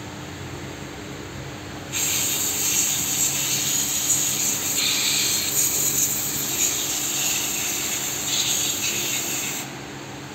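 Aerosol can of carburettor and throttle body cleaner spraying in one long hiss onto a small engine part to clean it. The hiss starts sharply about two seconds in, swells a little as the spray is aimed, and cuts off sharply near the end.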